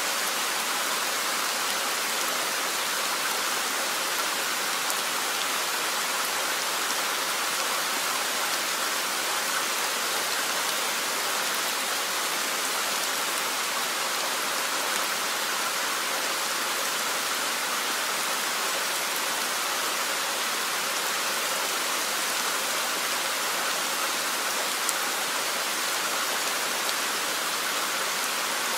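Steady rain, an even hiss of falling drops with no change in intensity.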